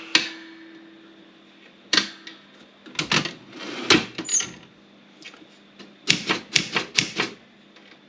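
Olympia SG 3 manual typewriter keys striking. A few single strokes are spaced out, then a quicker run of about six comes near the end. The keys are typed to try out the machine's pressure (touch) regulator setting.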